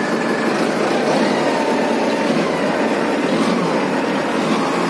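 Loud, steady mechanical running noise, an even din of machinery with no clear rhythm and a few faint steady tones in it.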